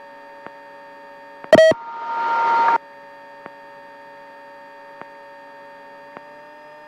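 Eurocopter AStar helicopter heard through the cockpit audio as a steady hum of fixed tones, with faint ticks now and then. About a second and a half in comes a loud short beep, then about a second of rising hiss that cuts off suddenly.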